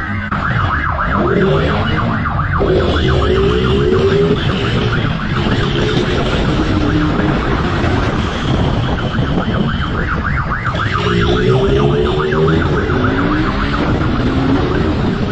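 Motorcycle engine running hard at speed with wind rushing past, and a siren wailing in rising and falling glides.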